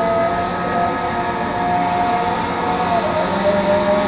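A steady mechanical drone with a held whining tone that wavers and dips slightly in pitch about three seconds in.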